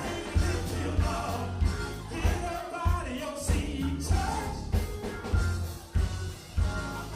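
Upbeat song with a singing voice over a steady low drum-and-bass beat, a little under two beats a second.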